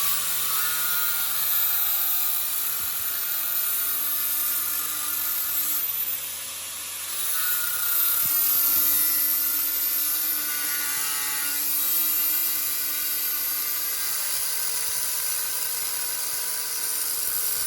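A small high-speed workshop tool runs steadily with a high hiss and faint whine, easing off briefly about six seconds in.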